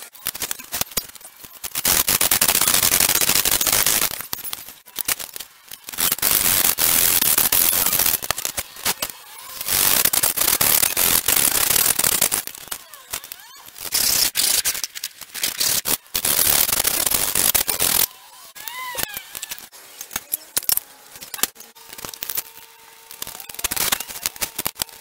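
Bow hacksaw cutting through thin pine slats held in a miter box, in several long spells of rapid strokes. Short knocks and clatter of the boards being handled come before and after the cutting.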